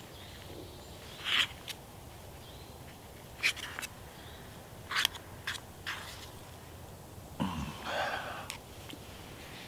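Metal fork scraping and clicking against a small cast iron skillet as a pancake is cut, a handful of short sharp scrapes a second or so apart, with a longer muffled sound near the end.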